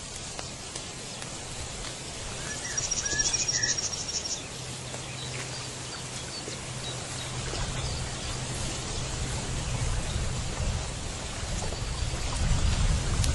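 Outdoor ambience: a steady hiss, with a bird giving a rapid high trill and a few chirps about two to four seconds in, and a low hum through the middle.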